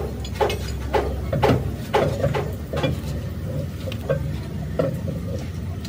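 Irregular short knocks and clicks, about two a second, over a steady low hum.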